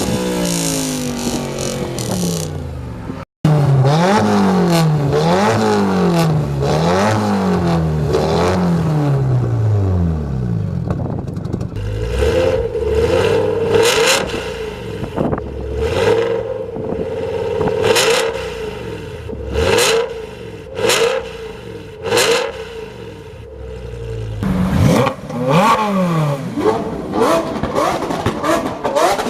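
Car engine revved hard again and again through its exhaust, the pitch climbing and falling with each blip. In the middle the engine holds a steady note while a series of sharp cracks rings out.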